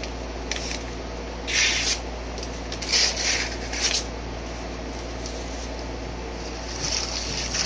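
A sharp bowie knife slicing through a sheet of paper to test its edge: a string of short, papery hissing cuts, most of them in the first four seconds, with a fainter one near the end.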